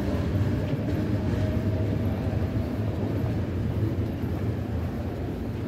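Metro train running on the elevated viaduct overhead: a steady low rumble with a faint whine that fades out about a second and a half in.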